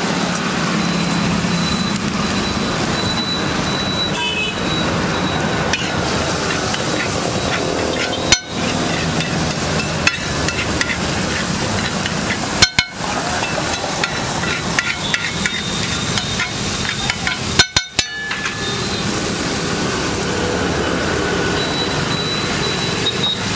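Tomato masala frying in oil on a flat iron griddle, with a metal spatula scraping and mashing across the plate and several sharp clanks where it strikes the griddle.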